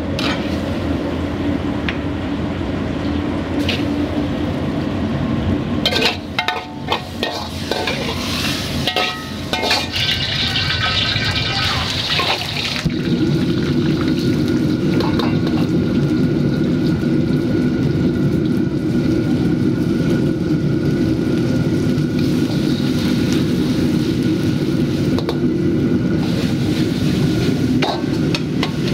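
Restaurant kitchen noise: running water and frying sizzle, with scattered metal clicks. About 13 seconds in, a steady low roar grows louder and holds.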